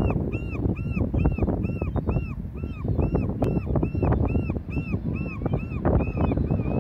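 An animal's high chirping call repeated evenly about three times a second, over a loud, uneven low rumbling noise.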